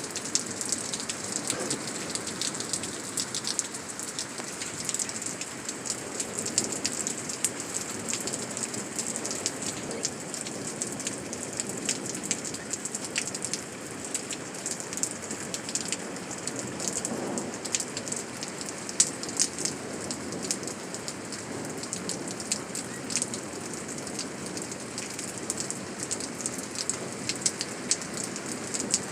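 Rain pouring down in a thunderstorm, splashing on hard surfaces: a steady hiss with many sharp drop ticks throughout.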